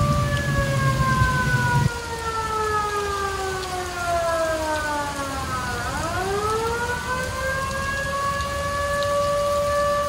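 Outdoor evacuation warning siren sliding slowly down in pitch to a low point about six seconds in, then rising back up and holding steady, over steady rain. A low rumble cuts off about two seconds in.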